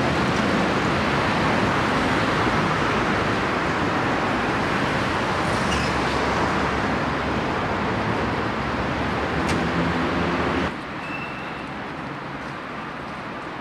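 City street traffic noise: a steady rush of passing cars that starts abruptly. About eleven seconds in it drops to a quieter background.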